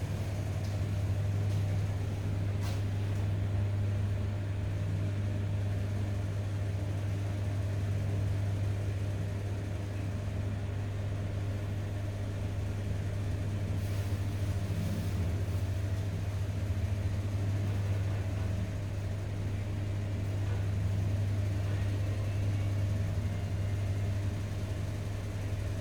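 Service lift car travelling, with a steady low hum and rumble from its drive.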